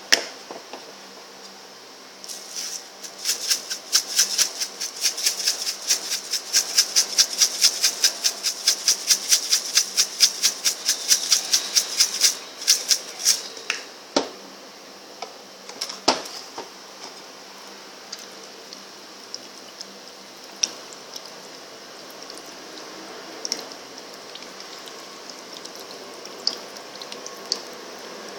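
Black pepper being dispensed onto raw chicken pieces in a glass bowl: a quick, even clicking at about four or five clicks a second for roughly eleven seconds. Two louder knocks and a few scattered clicks follow.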